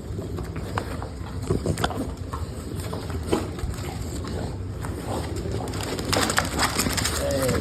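Dogs chewing and crunching raw chicken: irregular crunches and clicks, busiest about six seconds in, over a steady low background rumble, with a short whine near the end.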